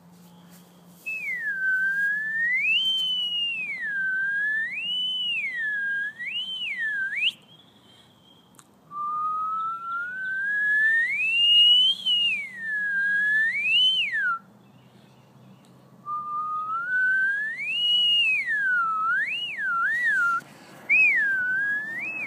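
A person whistling in three long phrases with short pauses between, the pitch sliding up and down in repeated swoops.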